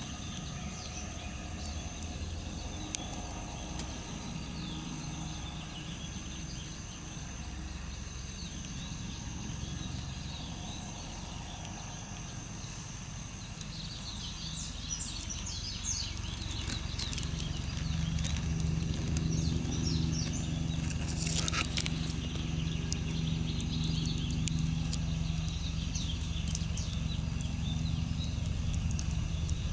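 Outdoor ambience: many short, high chirps, thickest around the middle, over a steady low hum that grows louder about two-thirds of the way through. One louder sweeping call comes just past the middle.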